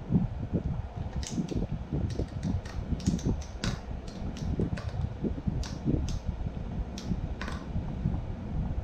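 The buckle strap of a MonkeyFeet foot dumbbell holder clicking in a run of about fifteen sharp, irregular ticks as it is tightened over the bare foot. Low thumps and rustling come from handling the dumbbell and strap.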